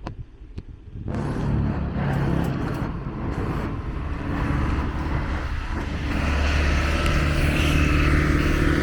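Road traffic: vehicle noise rises about a second in, with a motor vehicle's engine running close by that grows louder from about six seconds in.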